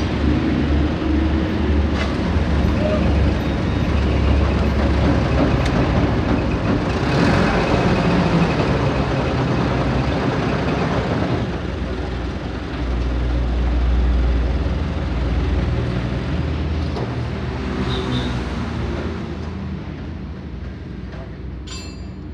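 Steady rumble of vehicle engines and traffic, swelling for a few seconds past the middle, with a sharp metallic clink near the end.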